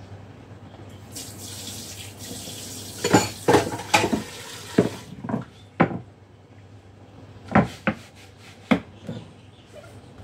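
Kitchen tap water running into the sink for about four seconds, with sharp clatters and knocks of kitchenware. A few more knocks follow as a wooden cutting board is handled on the counter.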